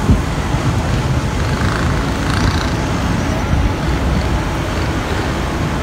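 Steady low rumble of city road traffic from the streets below.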